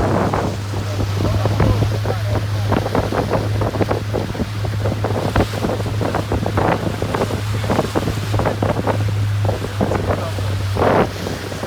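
Small motorboat under way: a steady low engine hum, with wind buffeting the microphone and water splashing against the hull in irregular gusts.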